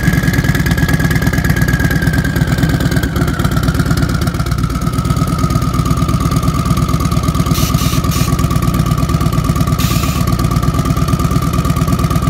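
Custom bagger motorcycle's V-twin engine held at high revs in place, a rapid, even exhaust rumble. Over it runs a steady high-pitched squeal that slides slightly lower about three seconds in.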